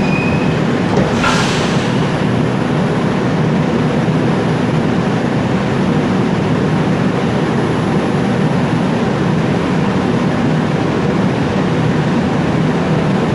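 Steady running noise of an R142 New York subway car, heard from inside the car as the train pulls into its terminal stop. A brief hiss comes about a second and a half in.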